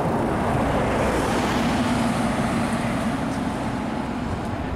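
Street traffic: a motor vehicle's engine and tyre noise swelling as it passes close by, then easing off.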